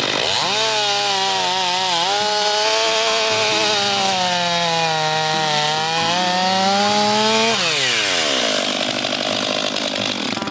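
Stihl MS 500i fuel-injected two-stroke chainsaw cutting through a log at full throttle, its engine note sagging under load and recovering. About seven and a half seconds in the revs fall away steeply as the throttle is released.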